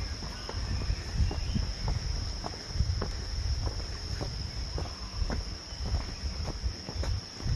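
Footsteps crunching on a gravel trail, about two a second, over a low rumble, with a steady high insect trill of crickets behind.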